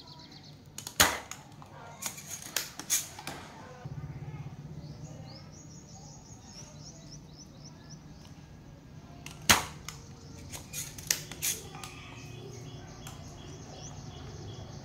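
Several sharp clicks or snaps, the loudest about a second in and again past the middle, over a steady low hum that comes in about four seconds in.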